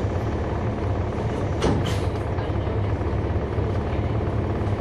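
Interior sound of a 2011 NABI 416.15 (40-SFW) transit bus, its Cummins ISL9 diesel engine running with a steady low rumble. A short burst of noise cuts in about a second and a half in.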